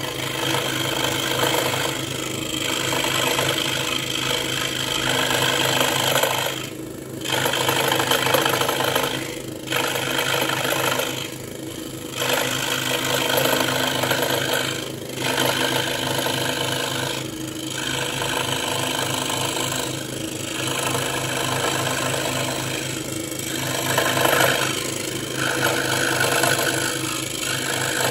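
Ryobi 405 mm scroll saw running at full speed, its reciprocating blade cutting a circle in wood: a steady motor hum with the rasp of the cut on top, which dips briefly every few seconds.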